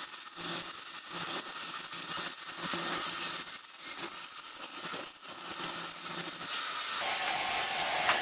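Stick-welding arc from a HANSHI 140A handheld electronic stick welder at full 140 A with a 2.1 mm electrode, crackling and sizzling as it cuts through angle iron. The arc cuts off near the end as the electrode burns down.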